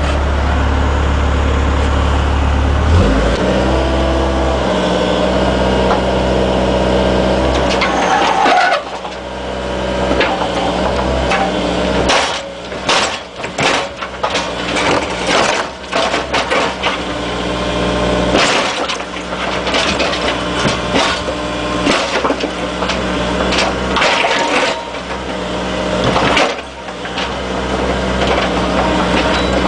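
Excavator engine running steadily, its hum shifting about three seconds in. Through the middle stretch comes a long run of sharp knocks and clanks.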